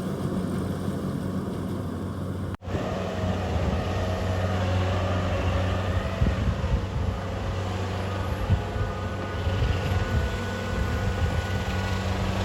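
Kubota DC-70G rice combine harvester's diesel engine running with a steady low hum. About two and a half seconds in, the sound drops out for an instant, then comes back with a faint whine and irregular clatter from the working machinery over the engine.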